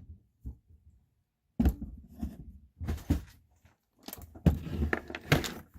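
Knocks and clatter of rummaging through workshop drawers and tools, an irregular string of thunks starting about one and a half seconds in.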